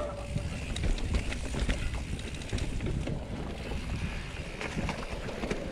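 Mountain bike riding over a narrow rocky trail: tyres crunching on dry leaves and stones, with irregular knocks and rattles from the bike and a low rumble of wind on the microphone.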